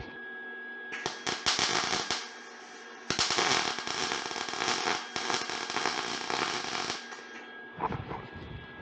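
MIG welder arcing on thin sheet steel in two crackling runs, a short one about a second in and a longer one of about four seconds starting around three seconds in. The bead sputters and burns through, which the welder blames on something wrong with the shielding gas.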